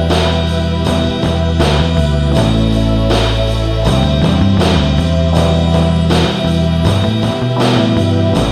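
Background music: an instrumental track with a steady beat.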